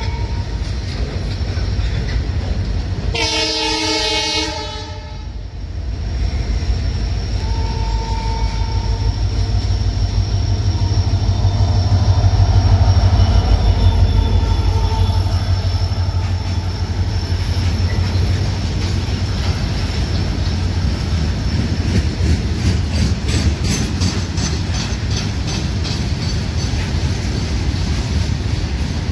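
WDG4 diesel-electric locomotive with its EMD 16-cylinder two-stroke engine passing at speed at the head of a freight train: a loud horn blast about three seconds in and a fainter one about eight seconds in, then the engine's low rumble, loudest about halfway through. After it come the covered freight wagons rolling by, with rapid wheel clicks over the rail joints in the last third.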